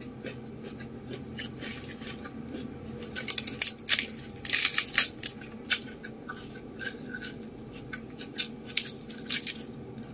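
ASMR eating sounds: closed-mouth chewing of fried rice vermicelli with wet mouth clicks, and lettuce leaves being handled. The sound comes as scattered short crackles and clicks, densest a little past the middle and again near the end.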